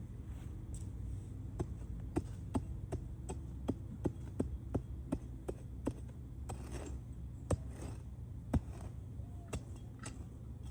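A run of light taps, about two or three a second, then a few scattered ones, from hand work in a garden bed, over a steady low rumble.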